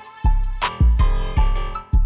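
Background music with a steady beat: a deep kick drum about every 0.6 seconds, sharp snare or clap hits, and sustained instrumental chords.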